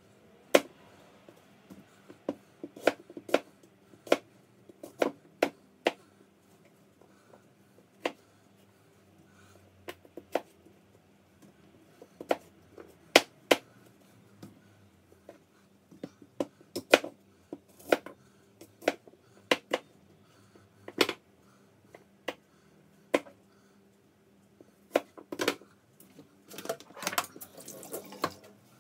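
Kitchen knife cutting apples on a cutting board: irregular sharp taps of the blade striking the board, with a quicker run of cuts near the end.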